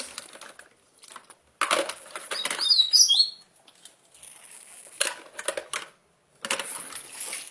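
Small plastic toy dishes being picked up and stacked, clattering and rattling in several irregular bursts, with a brief high squeak about three seconds in.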